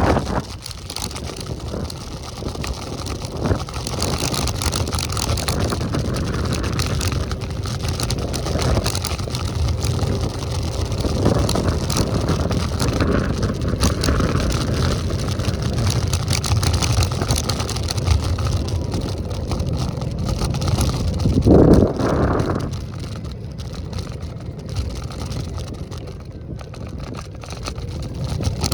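Road and wind noise from riding an electric scooter: a steady low rumble with wind on the microphone, and one brief louder burst of noise about three-quarters of the way through.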